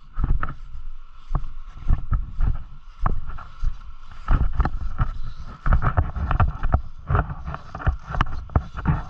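Dirt bike engine running, with irregular thumps and wind buffeting on the microphone.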